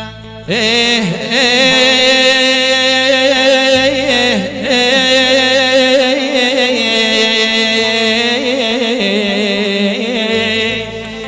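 Arabic mawwal singing: a male voice draws out a long, ornamented melodic line with wavering pitch over a steady sustained accompaniment, starting about half a second in.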